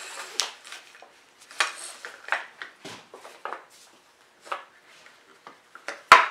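Band clamp and its corner blocks being fitted and shifted around a glued-up wooden box: scattered clicks and knocks, with one sharp knock near the end.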